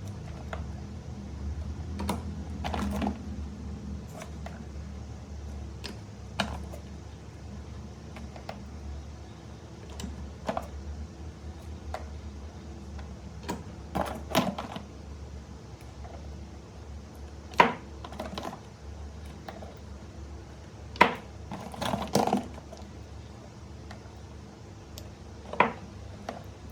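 Scattered light clicks and knocks at an irregular pace, with a few louder sharp clicks, over a steady low hum.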